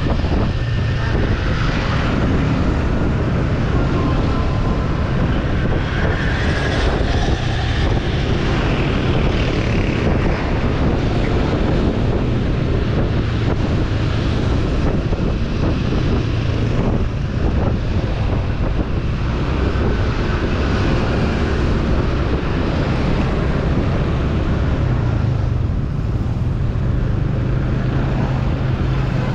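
Steady drone of a motor scooter's engine while riding, with road noise.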